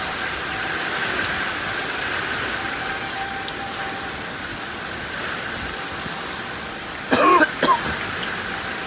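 Steady rain falling in a thunderstorm, with a faint steady tone under it from a distant tornado warning siren. About seven seconds in, a person's voice makes a short, loud sound.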